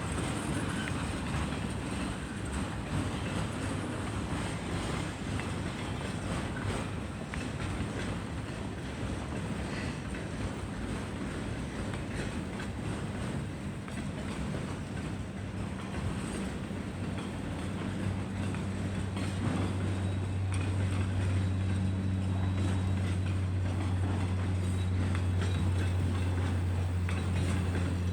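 CN freight train rolling past, a steady rumble of steel wheels on rail with some clatter. About two-thirds of the way through, a low steady hum comes in and grows a little louder until the end.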